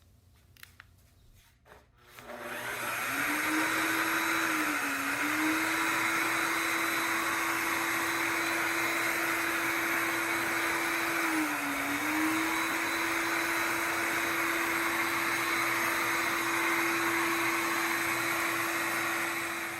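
Shark HydroVac MessMaster cordless wet-dry vacuum mop starting up about two seconds in, then running steadily with a high whine and hiss as it scrubs stains from the floor. Its pitch dips briefly twice.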